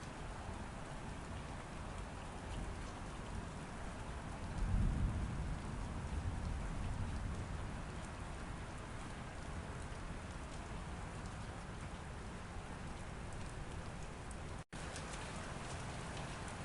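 Steady rain falling, with a low rumble of thunder that swells about four and a half seconds in and fades away over the next few seconds. The sound cuts out for an instant near the end.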